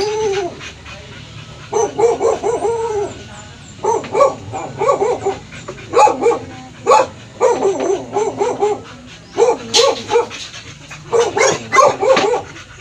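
Dog barking and yelping in quick runs of yaps, several bouts with short pauses between.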